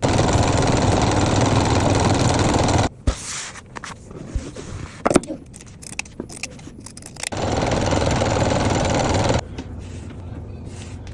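Electric sewing machine running in two bursts, the first about three seconds and the second about two, each starting and stopping abruptly. Between them come scattered light clicks and knocks.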